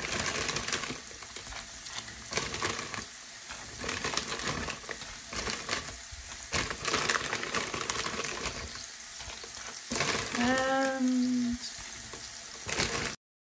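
Button mushrooms sizzling in a frying pan, with scattered small clicks as tagliatelle nests are dropped into a pan of boiling water. About ten seconds in there is a short, wavering voice-like tone, and the sound cuts off suddenly just before the end.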